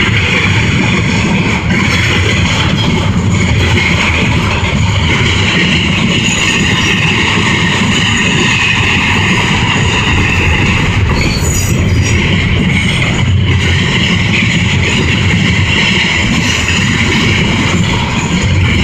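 Double-stack intermodal well cars of a CSX freight train rumbling past on the rails. The wheel-on-rail noise is loud and steady, with a high-pitched ringing over the low rumble and a few sharp clicks about two-thirds of the way through.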